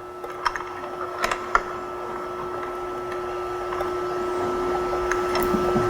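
Light clicks and taps of hand tools on metal parts while the ski's pivot bolts are tightened, mostly in the first two seconds. Under them runs a steady hum that slowly gets louder.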